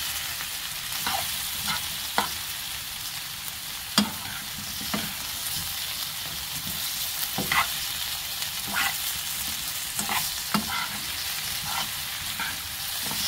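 Sliced pumpkin sizzling in oil in a frying pan as a metal spoon stirs it: a steady sizzle with irregular clicks and scrapes of the spoon against the pan, the sharpest about four seconds in.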